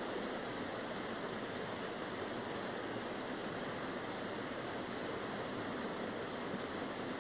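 Mountain stream rushing over boulders: a steady, even sound of fast-flowing water.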